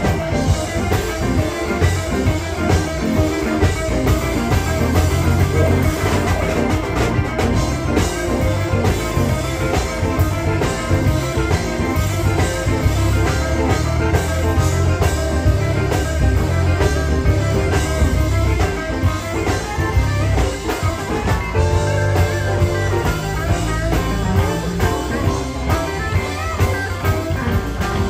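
Live electric blues band playing: electric guitars over bass and a drum kit, with a steady pulsing low end.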